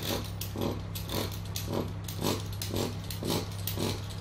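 Fluted pastry wheel rolled repeatedly across a thin strip of griwech dough on a wooden worktop, cutting rows of slits in even strokes, about two a second, over a steady low hum.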